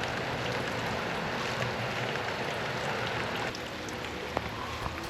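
Steady road and engine noise inside a car's cabin: a continuous rushing hiss over a low hum, easing a little about three and a half seconds in.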